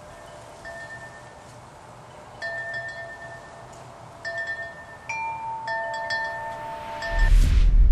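Chimes ringing: about five struck notes, each ringing on for a second or more and overlapping. Near the end a loud, deep rumble with a rising rush sets in.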